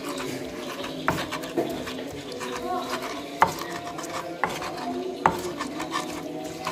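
Stone pestle (ulekan) grinding chillies and tomatoes in a clay mortar (cobek): a wet rubbing and scraping of stone against clay, with five sharp knocks of the pestle on the mortar, the loudest about three and a half seconds in.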